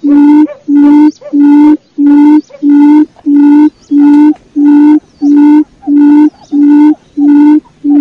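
Quail lure call: a loud, low hooting note repeated evenly, a little under two a second.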